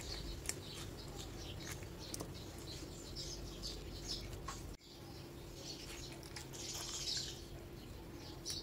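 Faint clicks and scrapes of a metal spoon scooping soft, very ripe mango flesh from its skin, with birds chirping faintly in the background over a low steady hum.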